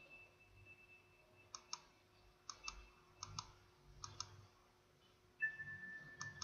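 Faint clicks in quick pairs, about five pairs in all, like a computer mouse button being clicked, over a faint steady high electronic whine that steps down in pitch about five seconds in.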